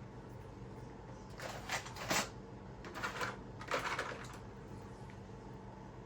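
Two short bursts of handling noise, small objects being moved, scraped or set down on a work surface, over a steady low hum.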